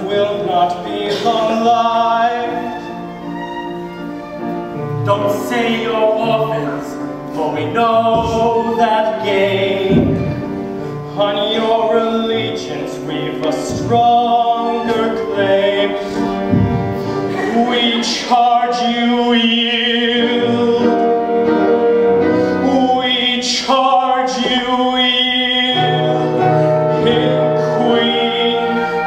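Live operetta singing on stage, with instrumental accompaniment; a male voice is singing near the end.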